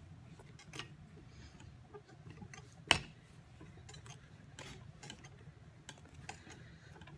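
Wooden rolling pin rolling out a clay slab between wooden thickness slats: scattered light clicks and taps from the pin and its handles, with one sharp knock about three seconds in, over a low room hum.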